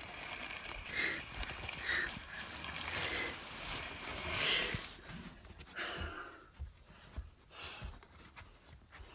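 A person imitating a jet taking off with the mouth: a breathy, hissing whoosh for about five seconds, swelling twice, then fading into a few fainter puffs.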